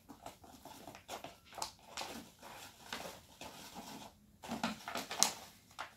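Flour being poured from a plastic packet into a measuring cup: soft irregular rustling and crinkling of the packet with the hiss of pouring flour, in a string of brief strokes.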